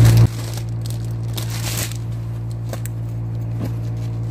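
Clear plastic packaging crinkling faintly in the hands, over a steady low hum, with a short loud low burst right at the start.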